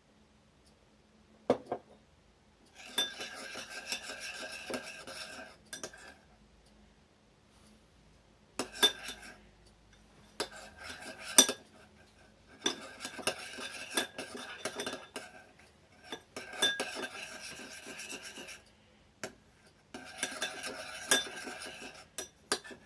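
A spoon scraping and clinking against a bowl in repeated spells of stirring, with sharp knocks in between, as glue and borax water are mixed into slime.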